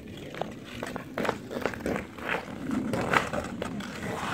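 Hockey skates and sticks on rink ice: irregular scrapes of skate blades and clacks of sticks and puck, about a dozen short strokes, the loudest a little past the middle.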